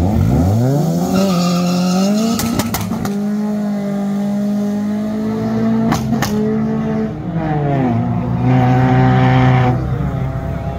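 Four-cylinder drag car launching hard: the engine note climbs sharply over the first two seconds, then holds high and steady. It drops about seven seconds in and settles at a lower steady pitch, with sharp cracks about two and a half and six seconds in.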